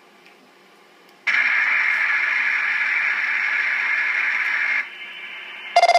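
P25 digital repeater signal demodulated by the IFR service monitor and heard on its speaker: a loud, harsh, steady digital buzz that starts just over a second in and lasts about three and a half seconds. It then drops to a quieter hum, and a short sharp burst comes right at the end.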